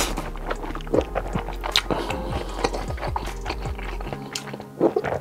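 A person chewing a mouthful of noodles close to the microphone, making many short, irregular mouth clicks. Background music with steady held notes plays underneath.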